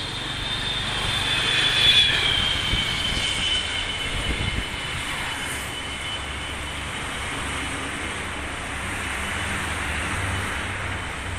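Road traffic: a steady rush of passing vehicles, with one high whine falling slowly in pitch over the first few seconds, loudest about two seconds in.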